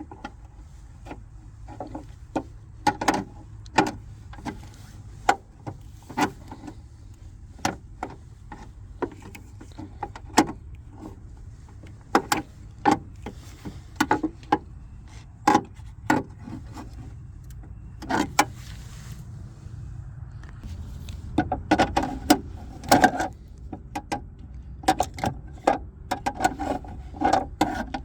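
Irregular clicks, taps and rattles of hands and tools working loose interior trim and seat-belt parts in a car, a few every second or two and busier near the end, over a low steady hum.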